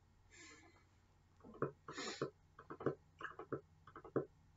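An irregular run of light clicks and taps, several a second, starting about a second and a half in, with a brief breath or rustle among them.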